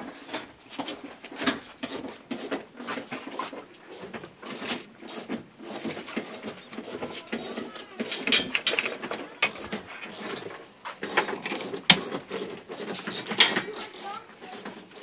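Irregular small clicks and rattles of tools and metal hardware being handled.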